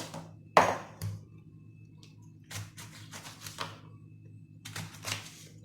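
Scattered knocks and clicks of kitchen utensils and food being handled while fish is prepared, the sharpest about half a second in, over a low steady hum.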